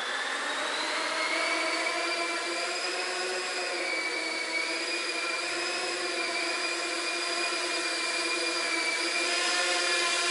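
Small quadcopter drone's electric motors and propellers whining in flight: a steady whine that wavers a little in pitch and grows slightly louder near the end.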